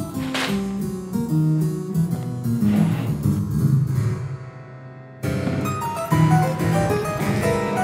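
Solo harpsichord playing fast, rhythmic figures of a montuno-style chaconne. About four seconds in the music thins to a fading low chord, then comes back suddenly and louder just after five seconds.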